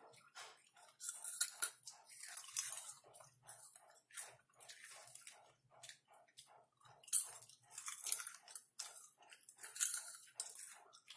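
Close-up crunching and chewing of caramel-coated popcorn, a steady chewing rhythm of about three bites a second with louder crisp crunches several times.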